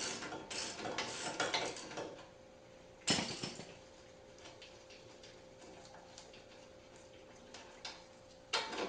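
Hand tools working a nut on a truck's steel front suspension: quick metallic clicking and clinking for about two seconds, a single sharp metal clank about three seconds in, then only scattered light clicks, and another burst of clinking near the end.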